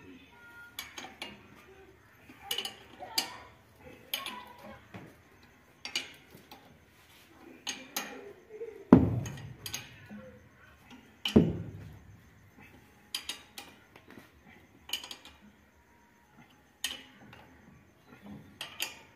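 Steel spanners clinking against the bolts and hub of a combine harvester's thresher pulley as the bolts are worked, in irregular sharp clinks about once a second. Midway there are two heavier metallic knocks a couple of seconds apart.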